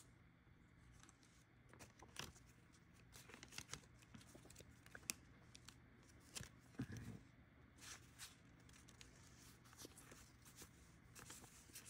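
Faint, scattered rustles and flicks of paper dollar bills being handled and counted by hand.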